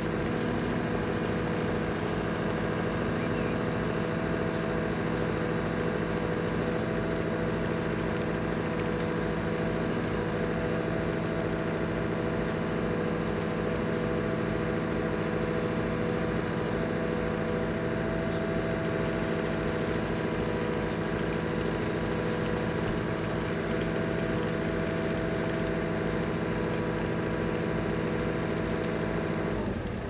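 Engine of heavy farm or earthmoving machinery running steadily at a constant speed, an unchanging hum over a low rumble.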